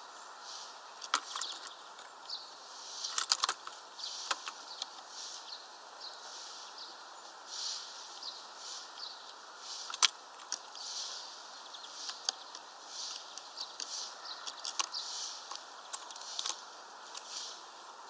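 Scattered sharp taps and clicks from a bird pecking at a suet ball in a hanging wire-spiral feeder, the loudest about ten seconds in, over a steady outdoor hiss with soft rustling puffs.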